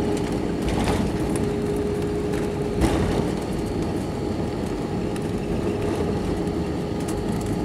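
Jet airliner cabin noise on the landing rollout, spoilers deployed: a steady rumble of engines and wheels on the runway with a faint steady hum, and a single bump about three seconds in.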